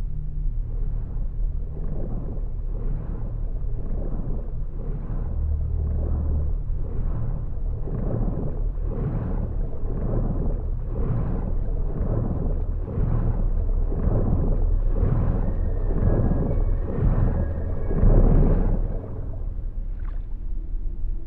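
Underwater pool sound: a low steady rumble with whooshing surges of churned water repeating a little more than once a second, as a swimmer kicks and strokes. The surges grow stronger toward the end and stop shortly before it.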